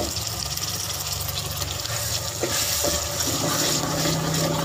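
Ground tomato-and-onion paste sizzling in hot oil in a metal pot. About halfway through a metal spoon knocks against the pot a couple of times and starts stirring and scraping the paste.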